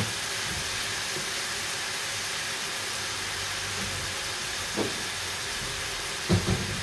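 Steady, even hiss of cooking at a kitchen stove, with a couple of short knocks near the end.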